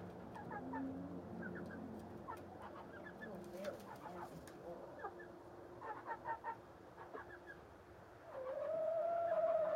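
Chickens clucking and giving short calls in quick little groups. Near the end one bird gives a long drawn-out call, rising at first and then held, the loudest sound.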